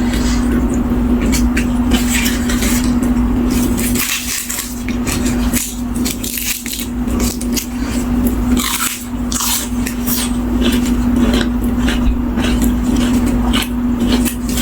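Close-miked eating: crunching and chewing of crisp food, with utensils scraping and clinking on dishes, over a steady low electrical hum.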